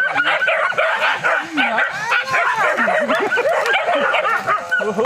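A pack of many dogs barking and yelping at once, their calls overlapping without a break.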